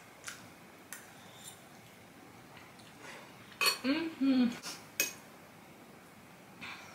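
Metal fork clinking against a glass bowl while pasta is twirled and lifted: a few light, scattered clinks, with a sharper one about five seconds in. A short voice-like sound comes just before it, about four seconds in.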